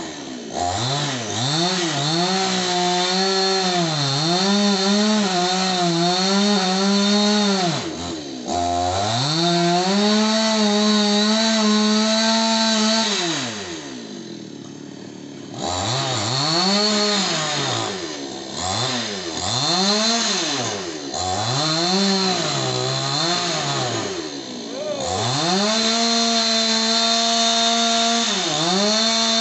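Two-stroke petrol chainsaw cutting into a wood log, revving up under load and dropping back repeatedly: a brief dip about eight seconds in, a longer drop toward idle around the middle, a run of short rev-ups, then held steady at high revs near the end.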